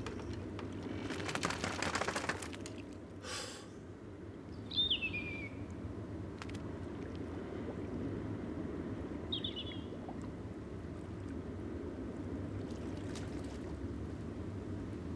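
Steady low ambience of wind and sea around a small boat, with a brief rush of noise about a second in. Two short bird calls that fall in pitch come about five and ten seconds in.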